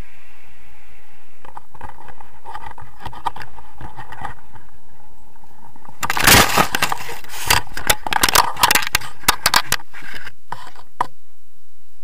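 Leafy branches crackling, snapping and scraping against the paraglider pilots and camera as they come down through a tree, a dense burst of rustles and snaps from about halfway in that stops near the end. Before it, wind noise on the microphone.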